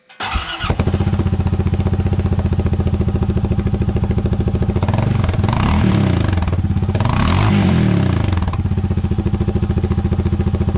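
Honda Pioneer 700's single-cylinder engine cranked on the starter and catching within a second, then idling with an even, rapid exhaust pulse through the stock muffler with its outlet tip and spark arrestor removed. It is revved twice in a row, the pitch rising and falling each time, and settles back to idle.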